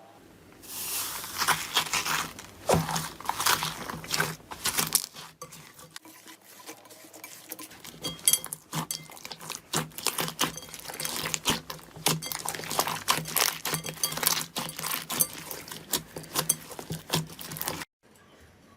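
Slime being squeezed and pressed by hand, giving a dense run of irregular crackling clicks and pops, with a brief break just before the end.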